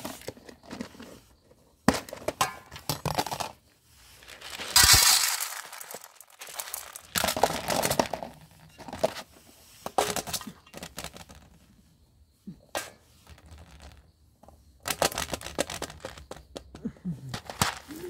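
A plastic tub and lid being handled and dry cat kibble tipped and rattled out of the tub: irregular bursts of crinkling, clicking and rattling, loudest about five seconds in.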